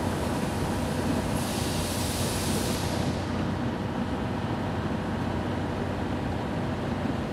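Diesel train locomotive running with a steady low engine rumble. About a second and a half in, a burst of hissing air lasts about a second and a half, then fades.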